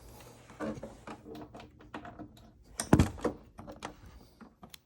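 Clicks, taps and rustles of a network patch cable being handled and worked into the network port on the back of a TV, with one louder thump about three seconds in.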